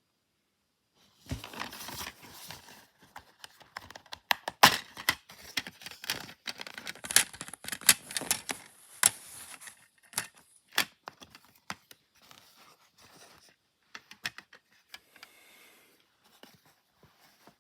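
Plastic wrapping on a DVD box set being torn and crinkled, with many sharp crackles and clicks. A stretch of high-pitched tearing comes a few seconds in, and the sounds grow sparser toward the end.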